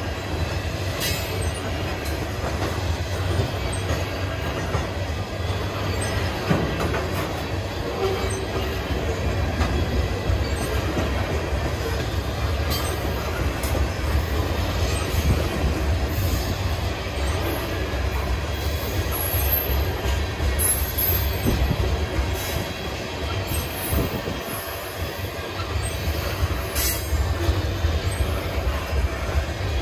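Freight cars of a long manifest freight train rolling past: a steady low rumble of steel wheels on rail with scattered clanks, and a few brief high squeals about two-thirds of the way through.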